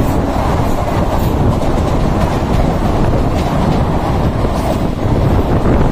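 An Indian Railways passenger train's coaches rushing past close on the adjacent track, heard from the doorway of another moving train. A loud, steady rumble of wheels and rushing air, with a faint clatter of wheels over the rails.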